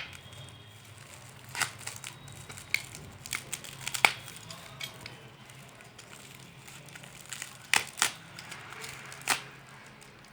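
Tightly packed parcel being torn and crinkled open by hand: scattered crackling with a few sharper snaps.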